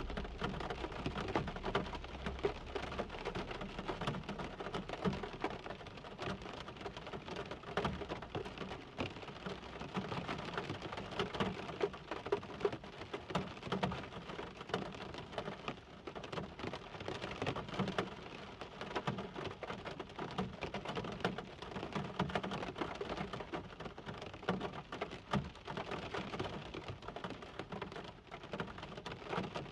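Steady rain falling, a dense, even hiss made up of many separate drops striking a surface.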